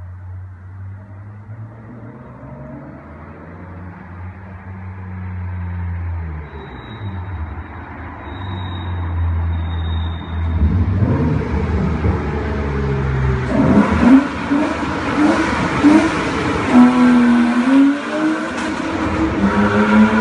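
BMW E36 325i's 2.5-litre straight-six engine running in a tunnel, at first at a steady low pitch that slowly gets louder. From about halfway on, the revs climb and fall again several times, growing much louder toward the end.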